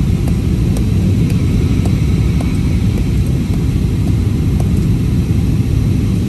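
Steady cabin roar inside an Airbus A320-family jet airliner, the engines and the air rushing past the fuselage heard as a deep, even rumble while the aircraft descends toward landing.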